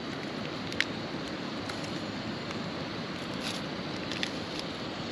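Wind blowing steadily, with a few sharp crackles from a campfire.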